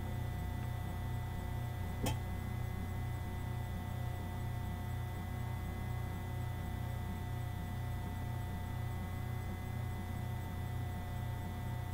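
Steady electrical hum, low and even, with faint thin tones above it, and one short click about two seconds in.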